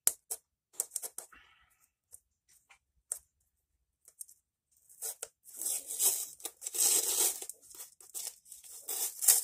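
Packing tape being torn off a cardboard box: a few light handling clicks in the first second or so, then from about halfway a run of long ripping pulls.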